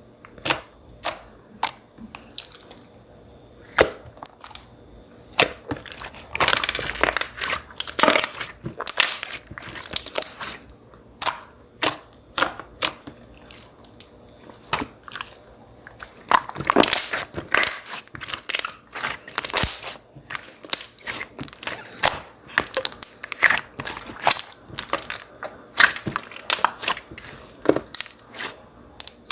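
Clear water-jelly slime being squeezed and pressed by hand, giving a quick run of sharp popping clicks as trapped air bursts, with longer crackling squelches at times.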